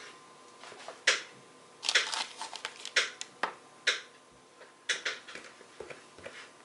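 Marinated fish being laid by hand onto onions on a parchment-lined metal baking tray: irregular short wet slaps, crackles and taps, about a dozen, thickest around two to four seconds in.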